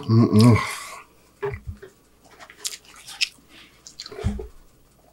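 Close-miked chewing of a mouthful of cheeseburger: wet mouth clicks and smacks scattered through, with a short hummed voice sound in the first second.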